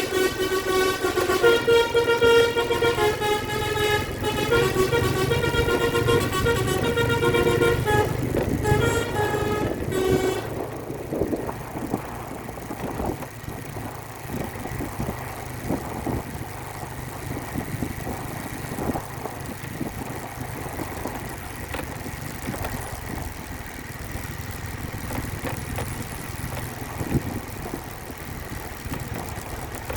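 Bus 'telolet' multi-tone musical horn playing a tune of quick stepped notes for about ten seconds, then stopping. After that only the diesel bus engine and road noise are heard.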